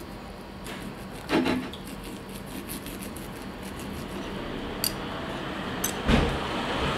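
Steak knife sawing back and forth through a pork steak and scraping on the plate, with sharp clicks of cutlery against the plate. Two louder knocks stand out, about a second in and near the end.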